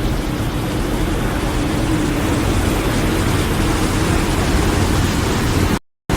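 Steady rushing noise with a faint low hum underneath, typical of wind and engine noise aboard a boat. It drops out abruptly for a moment near the end.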